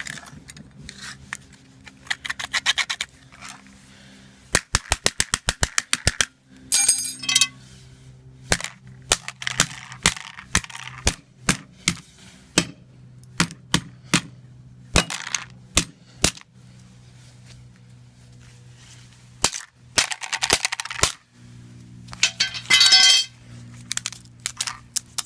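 A flip phone being broken apart: a string of sharp cracks and snaps, including a fast run of about eight clicks a second near the start, mixed with short bursts of scraping.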